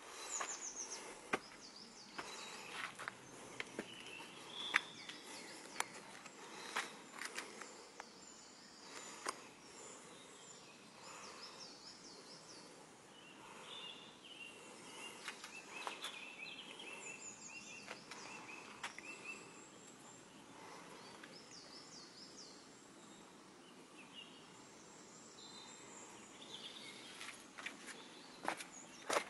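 Footsteps scuffing and tapping on concrete and grit, most of them in the first few seconds and again near the end, with small birds chirping and singing in the background, a warbling song about halfway through.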